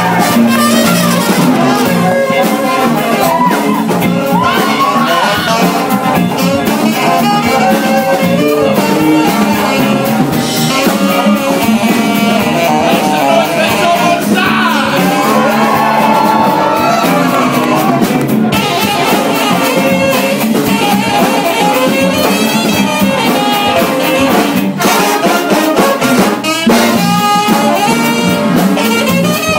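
Big band playing jazz, with trumpets, trombones and saxophones over the rhythm section's drums.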